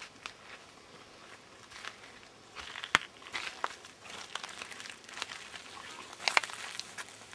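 Footsteps crunching over dry forest floor and brushing through dry leaves and twigs: irregular crackling, with a sharp snap about three seconds in and a cluster of crackles a second before the end.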